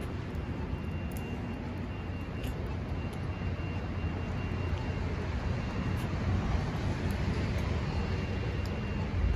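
City street traffic on a wet night: a steady wash of passing vehicles and tyre noise with a low rumble, growing a little louder in the second half as traffic comes closer. A faint steady high whine sits over it.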